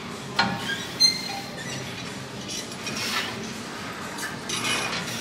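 Two sharp metallic clinks, the second with a short high ring, about half a second and a second in, followed by softer rustling noises.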